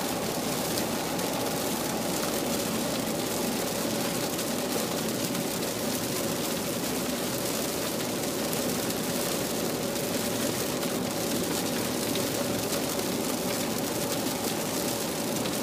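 Heavy rain beating on a car's roof and windshield, mixed with steady tyre and road noise, heard from inside the cabin. A faint steady hum sits underneath, and the sound stays even throughout.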